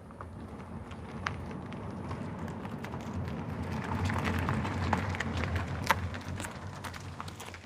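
Car engine and tyre noise rising slowly to a peak a little past the middle and then fading, with many small sharp ticks over a low rumble.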